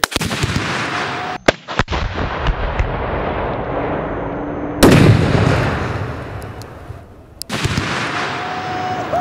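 A tannerite explosion set off by a rifle shot: a long, loud rumbling boom. The boom is heard several times with abrupt cuts between them, and the loudest blast comes about five seconds in and dies away over a couple of seconds.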